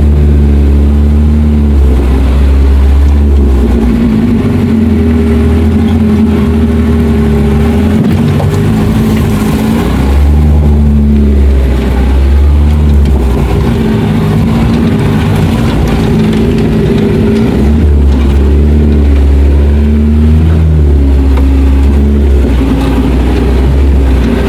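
Suzuki 4x4 off-roader's engine working on a trail, revving up and down, with its pitch rising and falling and a rougher, uneven stretch in the middle.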